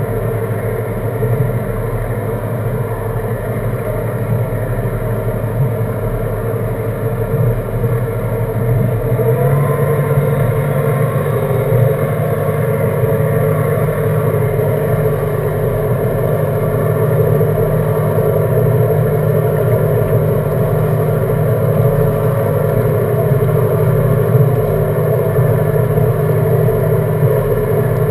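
Seven Marine 557 supercharged V8 outboard idling steadily. The pitch steps up slightly about a third of the way in and then holds.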